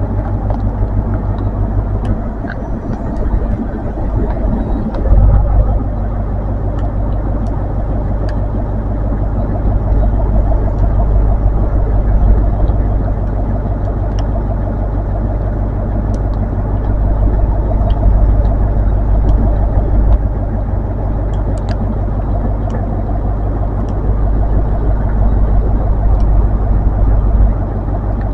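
Colas Rail Class 43 HST power car's diesel engine idling while the train stands at the platform: a steady low hum that swells and eases a little.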